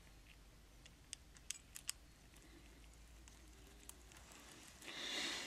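Faint small metallic clicks, four in quick succession and one more later, as the spring-loaded mixture adjustment screws are fitted back into a chainsaw's diaphragm carburettor by hand, with a soft rustle near the end; otherwise near silence.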